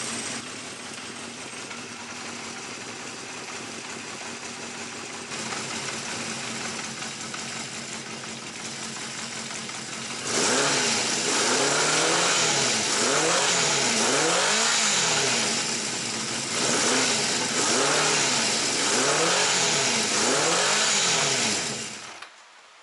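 Honda CB350F's air-cooled inline-four engine idling, then from about ten seconds in blipped repeatedly, revving up and dropping back about once a second, before it cuts off shortly before the end. The owner suspects an exhaust leak behind its abnormal noise.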